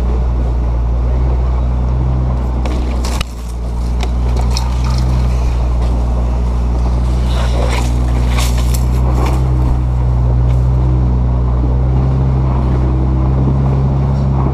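Off-road truck engine running steadily at low revs while crawling up a rocky trail, with rocks and gravel crunching and clicking under the tyres. There is a sharp click and a brief dip in the engine sound about three seconds in, and more crunching around eight seconds in.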